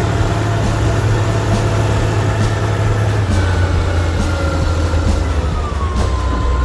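Steady, loud, low engine drone like a heavy truck, with a thin whine that slides down in pitch about three to six seconds in.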